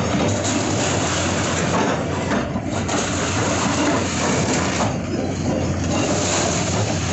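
Komatsu PC210 hydraulic excavators demolishing brick and concrete buildings: a steady diesel engine hum under a continuous crunching of masonry breaking and falling.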